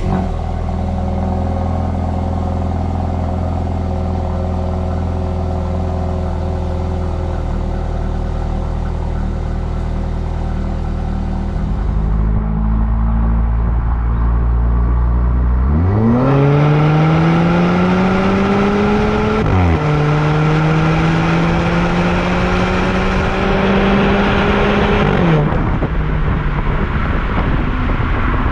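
Turbocharged 2.0-litre four-cylinder of a 2019 Volvo V40 T5 through a Polestar exhaust, idling steadily just after a cold start. About halfway through, the engine revs up with a rising drone, dips sharply once as at a gear change, climbs again, then drops back to idle near the end.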